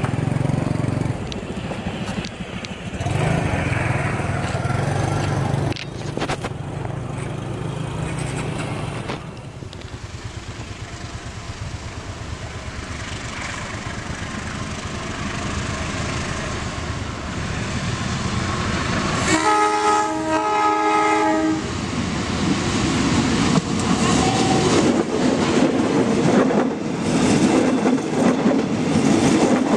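A train on the move: a steady low rumble, then a train horn sounds for about two seconds a little past the middle, followed by the wheels clattering over the rail joints as the cars of the hauled KRL electric train pass close by.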